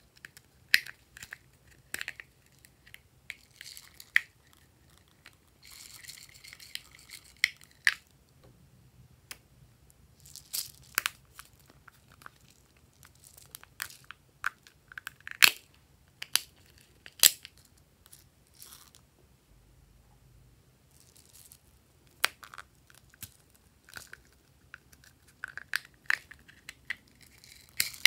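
Hands squeezing and tearing apart small donut-shaped toys: irregular crisp clicks and short spells of crackling.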